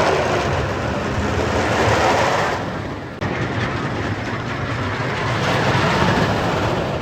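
Roller coaster train running along its track: a steady, loud rumble, with an abrupt break about three seconds in.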